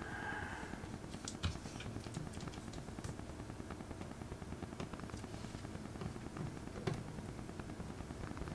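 A brief metallic scrape as a magnet is drawn along a screwdriver's steel shaft to magnetise it. This is followed by faint, scattered clicks and ticks of the small screwdriver seating and turning the screws that hold a laptop battery in place.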